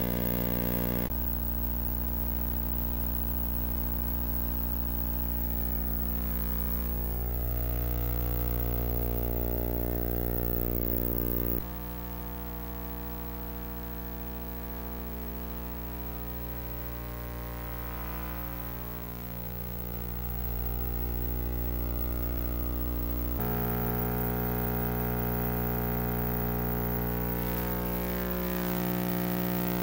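A steady electrical buzz, a mains hum with many overtones, unchanging in pitch. It shifts abruptly in tone and level about a second in, near the middle and again about two thirds of the way through.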